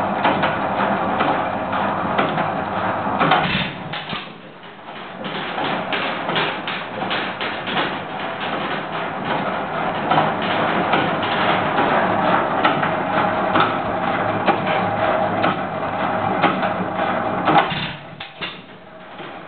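Hercules-built 7 hp Economy hit-and-miss engine running, a steady rhythmic clatter of clicks and knocks. The sound dips briefly about four seconds in and again near the end.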